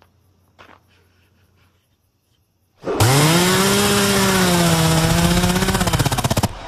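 A chainsaw revs up suddenly about three seconds in, holds a loud, wavering high rev for about three and a half seconds, and cuts off abruptly. A few faint clicks come before it.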